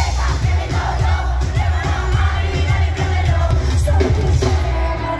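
Live reggaeton-pop concert music over a PA, with a heavy, steady bass beat and a female singer singing into a microphone, with crowd noise beneath.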